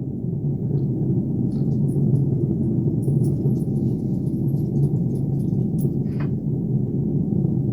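Steady low rumble, an edited-in sound-effect bed, with faint scattered clicks above it and a brief higher chirp about six seconds in.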